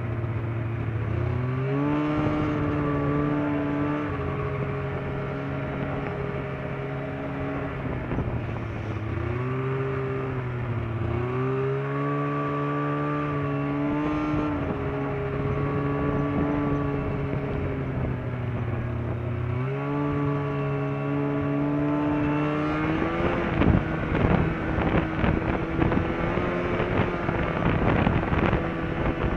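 Snowmobile engine running along a trail, its pitch dropping and climbing again several times as the throttle is eased off and opened. In the last few seconds the engine holds a steady speed under a rapid clatter of knocks and rattles.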